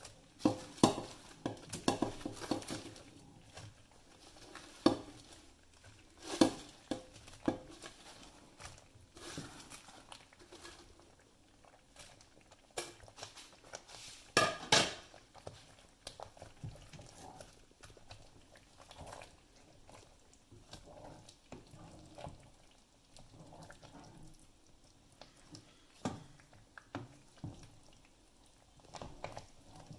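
Wooden spoon stirring thick kadhi curry in a stainless steel pot, with irregular knocks and scrapes of the spoon against the pot. A flurry of knocks comes in the first few seconds and the loudest cluster about halfway through.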